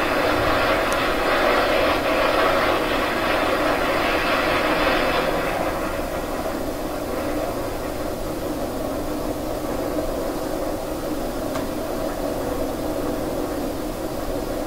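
A steady, rushing drone like a distant engine. Its upper hiss fades about five seconds in, leaving a lower, steady rumble.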